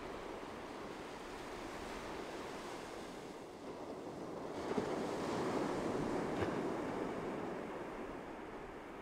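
Ocean surf: a steady wash of waves, with one wave swelling in about halfway through, loudest in the middle and easing off near the end.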